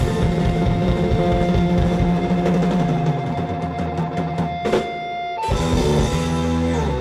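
Live indie rock band with electric guitar, keyboards and drums playing the closing bars of a song: the band thins out to a long held note, a single drum hit comes near the middle, and a full chord follows.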